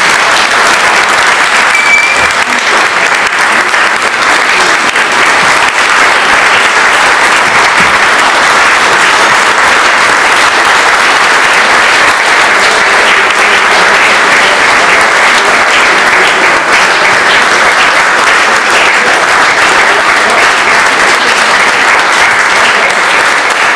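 A large audience giving a standing ovation: loud, steady applause from many hands clapping at once.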